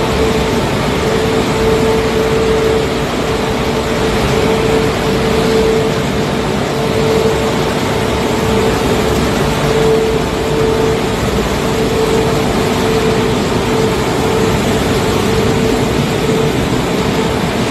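Automatic car wash running, its cloth wash strips sweeping and slapping over a wet car in a loud steady wash noise, with a constant machine hum underneath.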